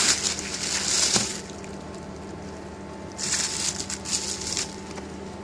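Bubble-wrap packaging crinkling as hands pull a small box out of it, in two bursts: one over the first second and a half, and another from about three to four and a half seconds in.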